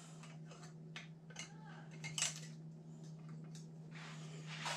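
Small plastic door-fitting clip and bracket being handled on a freezer door panel: scattered light clicks and taps, the sharpest about two seconds in and another near the end, over a steady low hum.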